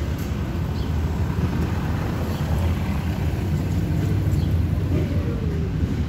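Harley-Davidson V-twin engine idling, a steady low exhaust rumble.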